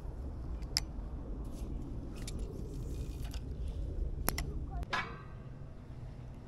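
Small clicks and rubbing from hands working a spinning reel and rod, with a sharper click about five seconds in. A low rumble runs under it and stops at about the same moment.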